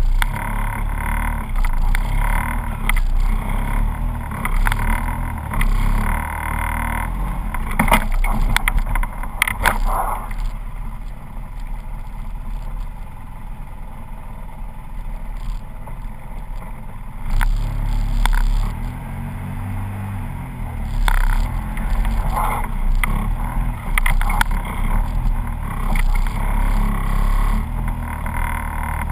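Polaris RZR side-by-side engine running on a fast downhill run, with repeated knocks and rattles from the rough track. The sound eases off for a few seconds near the middle, then picks up again.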